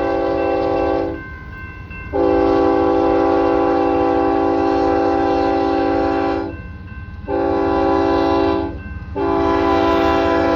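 Union Pacific locomotive's chime air horn sounding the grade-crossing signal: the end of a long blast, then a long blast, a short one, and a final long blast starting near the end, all over the low rumble of the moving train.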